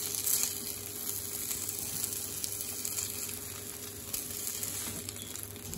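Hot oil sizzling steadily in a cast iron skillet, with small pieces of whiting still frying in it, over a steady low hum.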